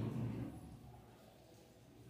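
Near silence: faint room tone as the last spoken word dies away.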